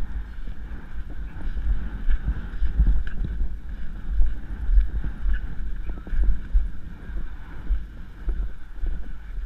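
Wind buffeting the microphone of a helmet-mounted camera on a horse being ridden across grass, a gusty low rumble with scattered faint knocks.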